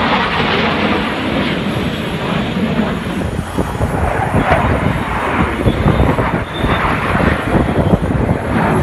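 Jet engine noise from a formation of four fighter jets flying overhead: a loud, steady rushing rumble.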